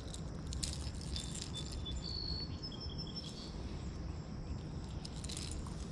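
Outdoor pondside ambience: a steady low rumble with a few short, high, thin chirps between about two and three seconds in, and scattered faint clicks.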